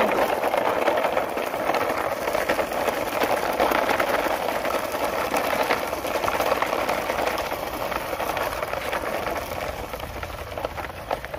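Tenspeed 9522-3 RC car's small electric motor and gears running, a steady whir with a rattle, growing gradually fainter.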